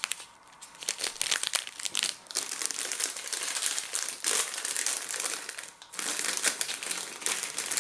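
Plastic crisp packet crinkling and crackling as it is handled and opened, with a brief lull about half a second in and another near the end.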